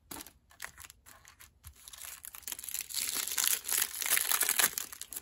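Clear plastic pack wrapper crinkling and tearing as it is pulled open by hand. It starts as a few faint crackles and gets denser and louder from about two seconds in.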